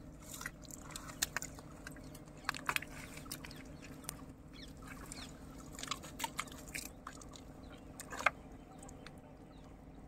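Scattered, irregular sharp clicks and crunches over a faint steady low hum.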